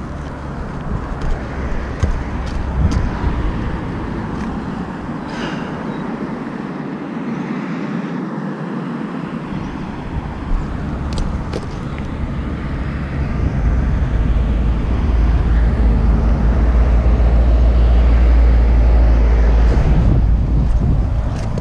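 Outdoor noise of road traffic and wind rumbling on the microphone, growing louder and deeper about two-thirds of the way in, with a few sharp clicks from handling gear.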